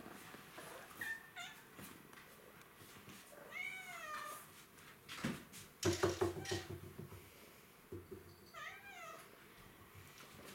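A kitten meowing several times: short meows about a second in, a longer call a few seconds later and another near the end. A few sharp knocks or thumps come around the middle.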